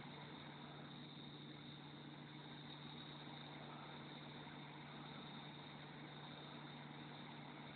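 A faint, steady low hum under even hiss, with no change and no sudden sounds.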